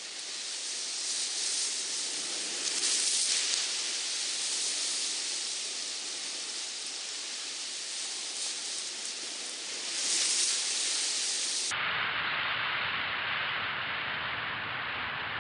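Sea surf washing over a rocky shore: a steady hiss of white water that swells twice as waves break. A little over two-thirds of the way through it changes abruptly to a duller, fuller rush.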